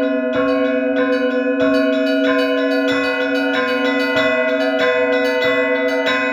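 Orthodox church bells pealing: several bells struck in a quick, steady rhythm of about two strokes a second over a continuous low ringing hum.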